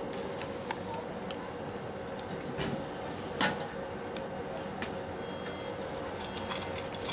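Steady mechanical hum with a constant mid-pitched tone, overlaid by scattered sharp clicks and taps; the loudest two come about two and a half and three and a half seconds in.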